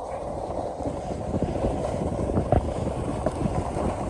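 Skis sliding and scraping over groomed snow, with wind rushing over the phone's microphone; short scraping streaks throughout, one louder scrape about two and a half seconds in.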